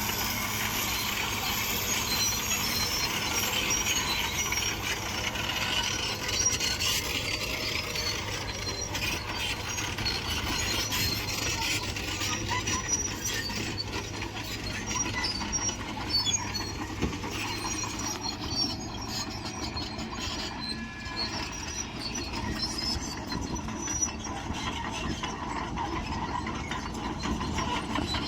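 Crawler bulldozer running steadily, its diesel engine mixed with the squeal and clatter of its steel tracks.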